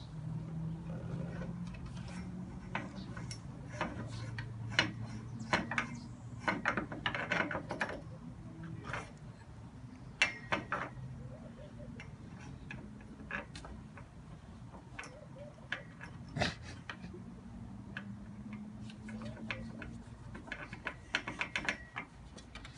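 Irregular clicks, taps and light scratches of a cat's claws against a grey pole and wooden deck boards as she paws at it, coming in scattered clusters, busiest in the first half and again near the end.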